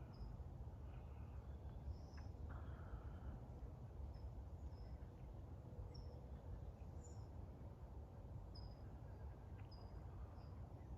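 Faint, short, high-pitched peeps from a peachick, repeated irregularly over a steady low outdoor rumble.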